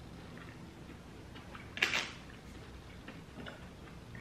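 Quiet room with faint scattered ticks and one sharp click about two seconds in.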